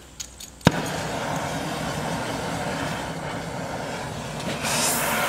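Oxy-acetylene cutting torch being lit: a few light clicks, then a sharp pop as the acetylene catches, followed by a steady hissing flame. Near the end the hiss gets louder and brighter as the oxygen is turned up.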